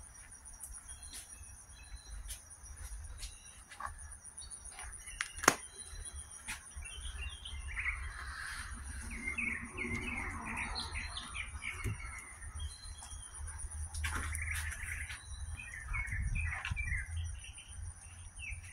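Birds chirping in bursts over a steady high-pitched insect drone, with scattered faint clicks and one sharp click about five and a half seconds in.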